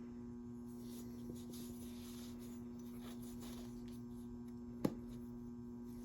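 Steady low electrical hum, with one faint click about five seconds in.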